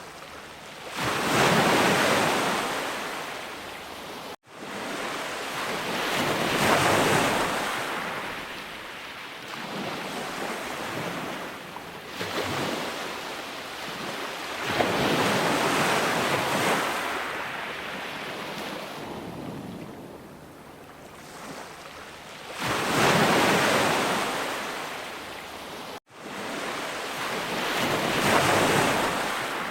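Sea waves breaking and washing up the shore, a rushing hiss that swells and ebbs roughly every four to eight seconds. Twice the sound drops out for a split second, as at a splice in the recording.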